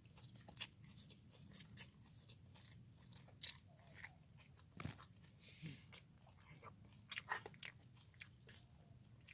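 A person chewing a mouthful of fried instant noodles with vegetables: faint, scattered crunches and soft mouth clicks.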